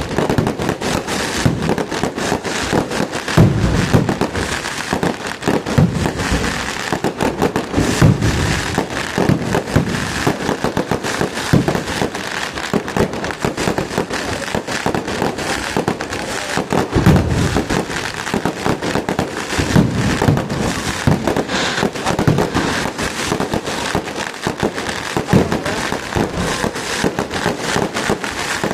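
Fireworks display: a dense, continuous crackle of many rapid small bursts, with heavier deep booms standing out several times.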